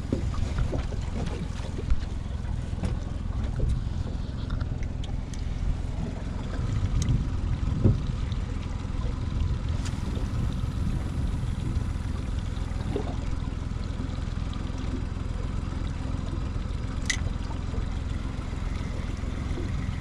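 Steady low rumble of wind on the microphone and water lapping against the hull of a small boat at sea, with a few scattered sharp clicks and knocks.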